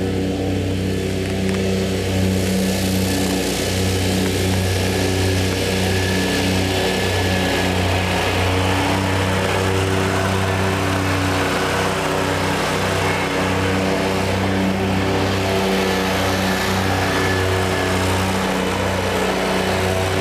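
Kawasaki FX1000V 37 hp V-twin engine of a Wright stander zero-turn commercial mower running steadily while the mower drives across grass.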